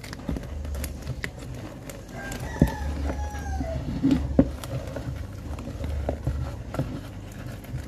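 Spoon knocking and scraping against a mixing bowl as cake batter is stirred by hand, in scattered short clicks. About two seconds in, a bird's drawn-out call rises and then falls over a second and a half.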